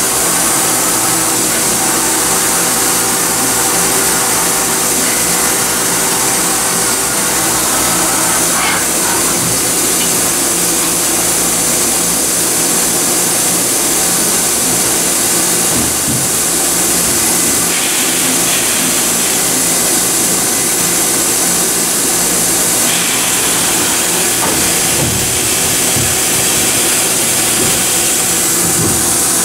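Horizontal machining center running: a steady loud hiss with a low hum underneath, the hiss changing tone a couple of times partway through.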